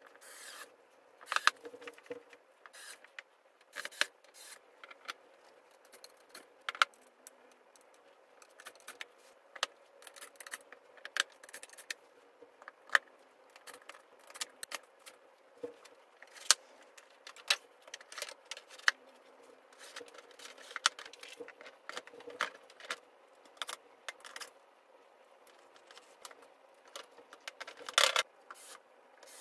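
Flat-pack furniture assembly by hand: scattered clicks, taps and metallic clinks from screws, a screwdriver and metal drawer slides, with wooden panels knocking and rubbing. There is a louder cluster of knocks near the end.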